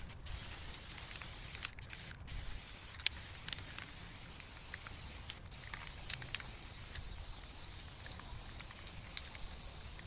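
Aerosol can of Rust-Oleum spray paint hissing as black paint is sprayed over rows of aluminium soda cans, in long bursts with a few brief breaks.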